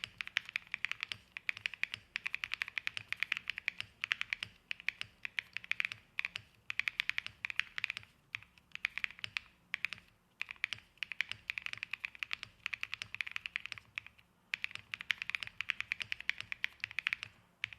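Mechanical keyboard with Flower Shadow switches in an aluminium plate being typed on in fast runs of key clicks, broken by short pauses every few seconds.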